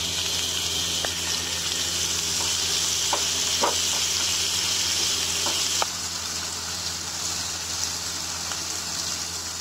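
Sliced ginger and whole garlic cloves sizzling steadily in hot mustard oil in a pan, with a spatula stirring and scraping a few times; the sizzle drops a little about six seconds in.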